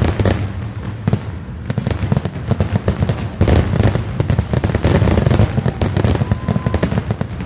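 Fireworks bursting in a rapid, dense barrage, with many overlapping bangs and crackles over a heavy low rumble.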